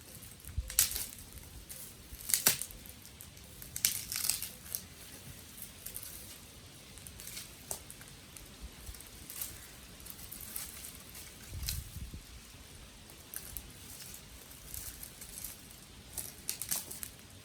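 Dry twigs and sticks crackling and snapping in irregular sharp cracks, the loudest about one, two and a half and four seconds in, with fainter crackling in between and a brief low thud near the end.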